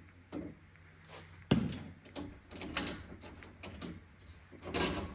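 Small metal parts clicking and knocking as a capacitor head is fitted back into a laser cutting head: a sharp knock about a second and a half in, a run of light clicks and rattles, and another knock near the end.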